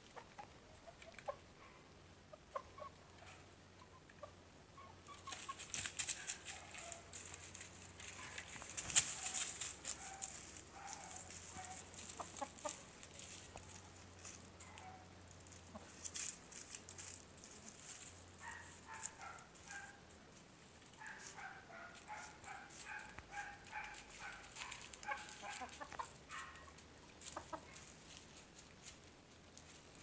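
Young gamecock roosters and a hen clucking softly in short, repeated notes, with a run of clucks from about 18 to 27 seconds. Earlier, about 5 to 13 seconds in, there is a stretch of rustling and scratching in dry leaf litter.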